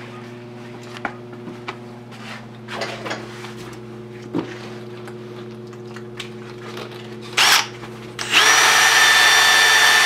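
A cordless drill starts about eight seconds in and runs steadily at speed with a steady motor whine, spinning a 2000-grit pad to wet-sand a cloudy plastic headlight lens. Before it come a few light clicks and a brief burst of noise.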